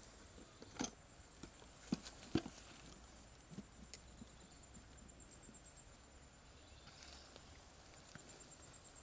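A few faint sharp clicks and knocks, the loudest about two seconds in, from a syringe dart being handled and fitted together in the fingers. Behind them an insect trills high and thin, coming and going.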